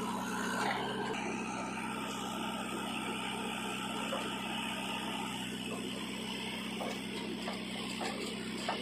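Diesel engine of a JCB 3DX backhoe loader running steadily while the backhoe arm works, swinging and dumping loads of soil.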